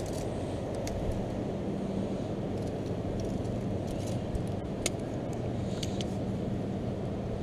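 Steady low outdoor rumble with a faint even hum, and a few light clicks about two-thirds of the way in.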